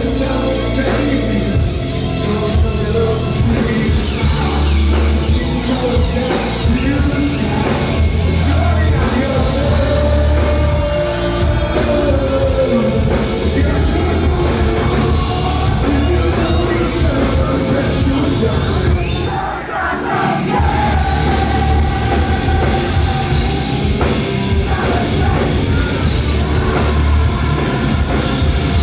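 Hard rock band playing live: drums, electric guitars and bass under a lead singer. The cymbal hits drop out for a few seconds a little past the middle, then the full band comes back in.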